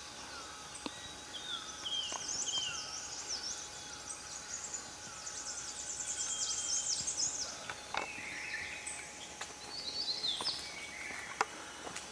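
Several small birds singing, with no other sound competing. First comes a series of short down-slurred whistles repeated about twice a second, then a dense burst of fast, high twittering in the middle, and a few more sliding notes near the end.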